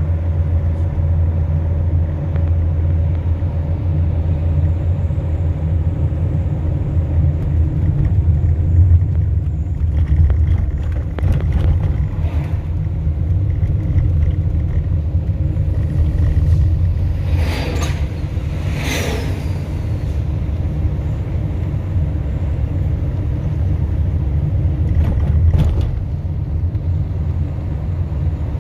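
Steady low rumble of a motor vehicle running, with a few brief higher sounds about two-thirds of the way in and again near the end.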